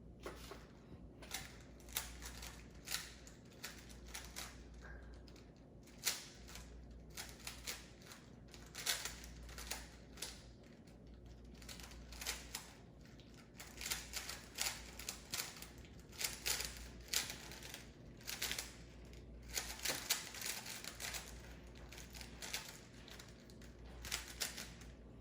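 Rubik's cube being turned fast by hand: rapid clacking of its plastic layers, in quick flurries of clicks separated by short pauses.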